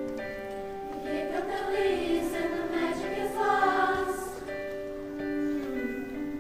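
High school choir singing held chords in several parts, with a louder, more moving vocal line swelling in the middle.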